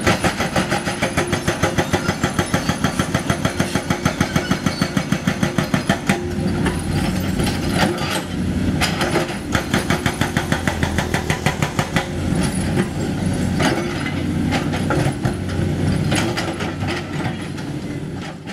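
Crawler excavators at work: diesel engines running under a rapid, even metallic clatter of about eight strikes a second, strongest in the first few seconds and coming back in stretches later.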